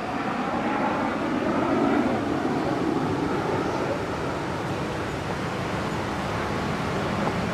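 Jet engine noise from a BAC Strikemaster's Viper turbojet as the aircraft flies a steep turn: a steady rushing jet sound that swells a little about two seconds in.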